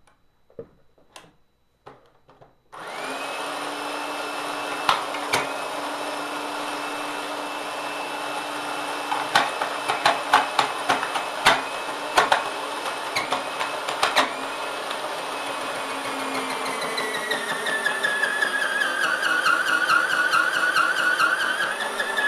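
Presto SaladShooter electric slicer-shredder switched on with a few light knocks, then its motor runs with a steady whine. Sharp cracks and snaps come through the middle as wood is fed into it. Later the motor's pitch wavers and dips as it strains under the load.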